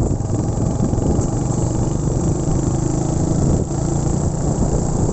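Motorcycle engine running steadily while riding, a low steady hum with engine tones that hold through the whole stretch.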